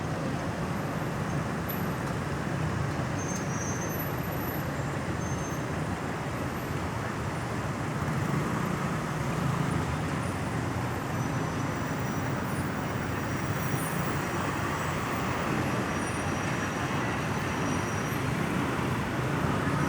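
Steady road traffic noise, swelling a little about eight seconds in and again near the end.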